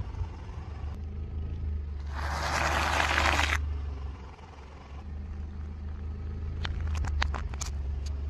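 Car tyre crushing a bag of popcorn: a loud crackling crunch of about a second and a half, about two seconds in. Near the end comes a run of sharp snapping cracks as the tyre rolls over hard crunchy items. The car's low rumble runs underneath throughout.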